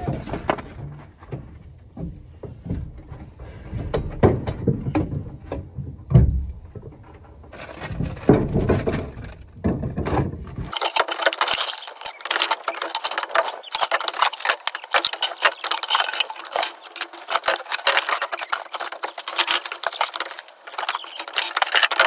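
A shovel scraping and knocking in a pickup truck bed as dirt, straw and junk are cleared out, with scattered heavy thumps. About ten seconds in, the sound abruptly turns thin and hissy: dense crackling with no bass.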